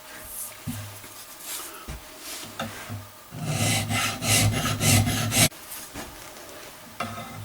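A file being drawn across a steel rifle barrel in draw filing strokes. The strokes are scattered at first, then a louder run of quick strokes follows from a little past three seconds until about five and a half seconds in, working the old finish and waviness off the barrel.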